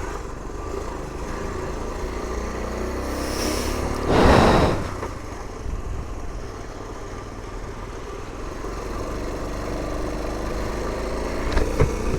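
Honda CT90's small single-cylinder four-stroke engine running under way, with wind and rain noise over the microphone. A loud rushing burst comes about four seconds in, and the engine's pitch rises over the last few seconds as the bike speeds up.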